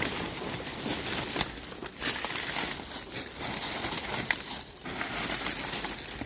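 Footsteps crunching through dry leaves and brush: irregular rustling crunches, roughly one or two a second.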